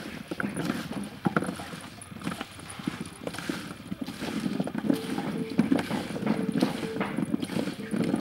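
Chopped raw broccoli, carrot and potato being tossed by hand in a stainless steel tray: a continuous irregular clatter and rustle of vegetable pieces tumbling against the metal.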